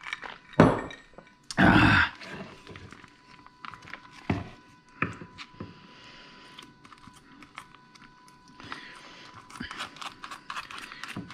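Things being handled on a kitchen counter: a few knocks and thunks, the loudest about a second and a half in, then scattered light clicks. A faint steady whine sits underneath.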